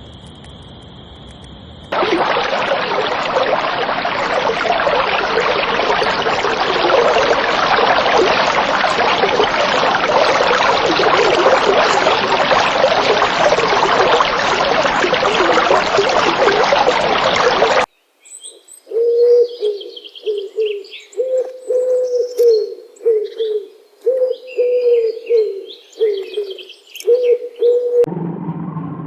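Birds calling: a dense, continuous chorus of chatter for about sixteen seconds, cut off suddenly, then a low call repeated many times in short phrases with higher chirps above it.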